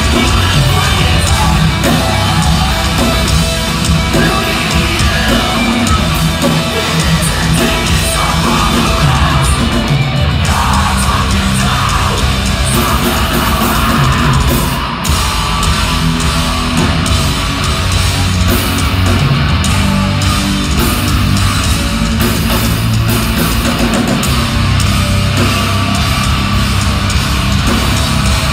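British metalcore band playing live at full volume: distorted electric guitars, bass and drums with yelled vocals, heard from within the crowd. The music drops back briefly about halfway through before coming straight back in.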